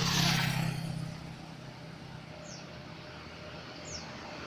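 Road vehicle engine running with a low steady hum, and a rushing whoosh in the first second that fades as it passes.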